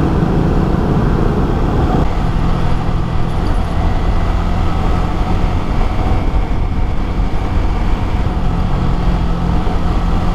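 Wind buffeting the microphone over the steady engine note of a Yamaha R15 V3 sport bike's single-cylinder engine while riding at cruising speed. The sound changes about two seconds in as the ride cuts to another stretch of road.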